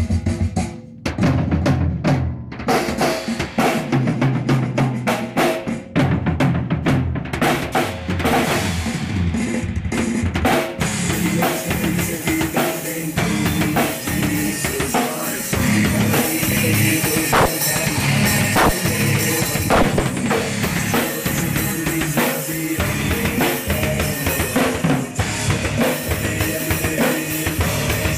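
Drum kit played in a busy groove: bass drum, snare hits and rimshots. From about eleven seconds in, the cymbals ring almost continuously over the beat.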